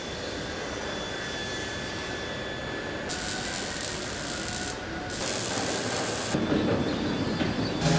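Car body-shop noise: a steady mechanical din with two bursts of bright hiss, each a second or more long, typical of arc welding on a car body shell. A louder low hum comes in near the end.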